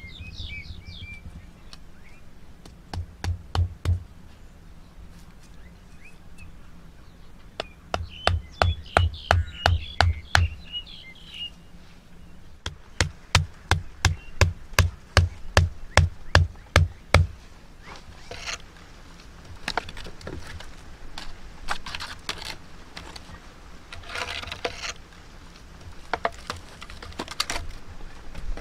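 A hatchet knocking bamboo stakes into the ground in three runs of quick, even blows, about four a second, each with a dull thud. After that come rustling and clattering wood noises as split logs are set down between the stakes, with birds chirping in the background.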